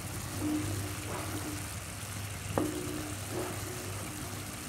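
Sugar and water boiling into syrup in a pan, bubbling and sizzling as a wooden spatula stirs it, with one sharp tap of the spatula on the pan about two and a half seconds in. A steady low hum runs underneath.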